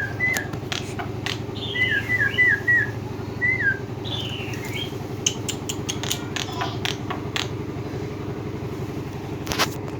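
Jalak putih (black-winged starling) calling: short whistles that drop in pitch, four in quick succession about two seconds in, and a couple of higher calls that slide down. Underneath are a steady low hum and scattered sharp clicks, which are most frequent in the middle and near the end.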